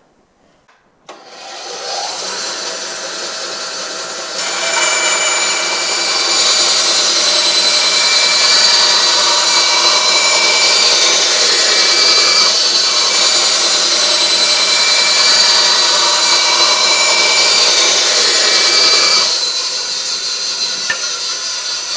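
A bandsaw starts about a second in and runs free, then from about four seconds in its blade rips black walnut into thin strips, louder and with a steady high whine, until near the end, when the cut finishes and the saw runs free again.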